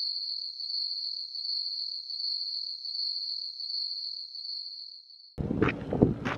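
Steady high-pitched insect trill, a cricket- or cicada-like buzz, that cuts off suddenly about five seconds in. Wind buffeting the microphone follows, with a couple of sharp knocks.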